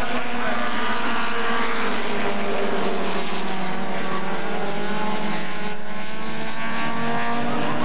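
Several dirt-track stock cars racing together, their engines running hard at once. Their pitches rise and fall as the cars accelerate and pass.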